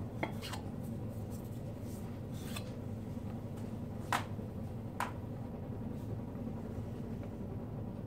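A handful of light clicks and taps from metal blower parts being handled on a workbench, the two sharpest about four and five seconds in, over a steady low hum.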